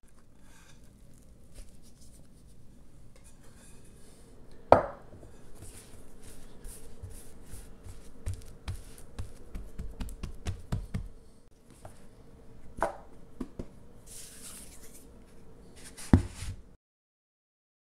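Hands patting, slapping and working a ball of sticky rye bread dough on a floured stone countertop: irregular soft pats and taps, with a few sharp knocks, the loudest about five seconds in and another near the end.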